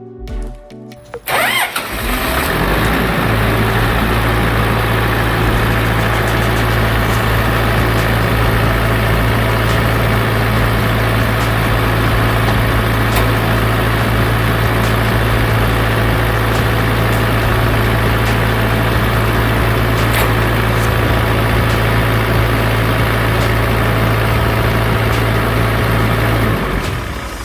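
Fire pump engine starting a little over a second in, then running at a steady speed with a constant low drone, and dying away near the end.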